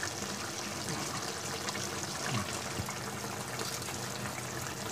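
Fish curry gravy bubbling at a steady simmer in a metal kadai, a continuous soft bubbling and crackle.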